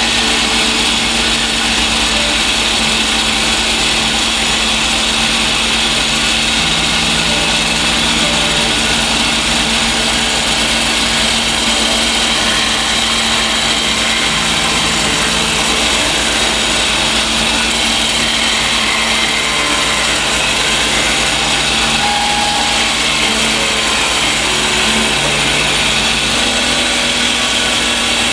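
Shopsmith Mark VII combination woodworking machine driving its bandsaw attachment on a low speed setting: a loud, steady whir with a constant hum.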